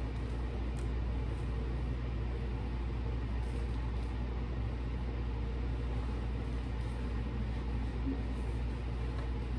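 A steady low hum that holds the same pitch and level, with no clear separate knocks or rustles standing out above it.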